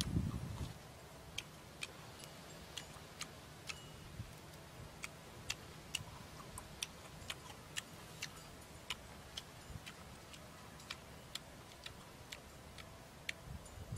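Faint sharp clicks, roughly two a second and a little uneven, over a low steady hum: the wet mouth clicks of someone chewing grilled cow lung. A louder, lower mouth sound fades out in the first second.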